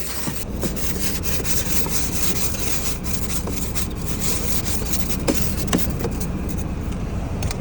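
Ice scraper scraping ice off a frozen car, with continuous rasping strokes.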